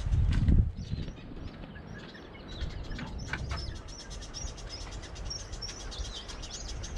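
Small birds chirping repeatedly in short high calls. A gust of wind rumbles on the microphone at the very start, and a couple of light knocks come about three seconds in.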